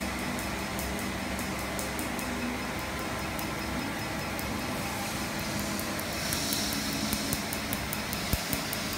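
Q-switched ruby laser (Quanta Q Plus C) firing on the skin, each pulse a short click, two to three a second, with a lull in the middle. Under it the steady hum and hiss of the laser unit and the cold-air skin chiller blowing through its hose.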